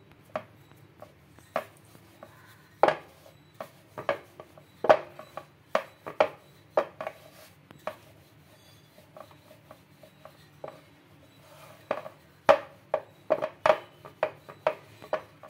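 Wooden rolling pin working poori dough on a wooden rolling board, with irregular clacks and knocks as the pin bumps and rocks the board. The knocks come several a second in two busy stretches, about three seconds in and again near the end, with a sparser lull between.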